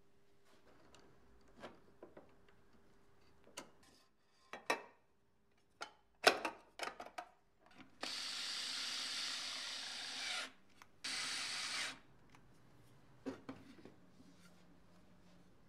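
Workshop tool work on a shredder repair: scattered knocks and clicks of parts and tools being handled, then a loud steady hissing tool runs in two bursts, about two and a half seconds and then about one second long.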